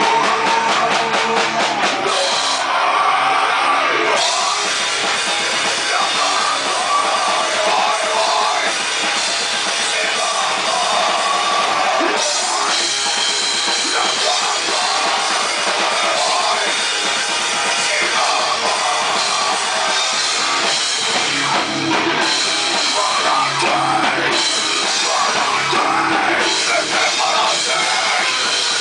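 Instrumental stretch of a rock song without singing, with a busy drum kit driving it.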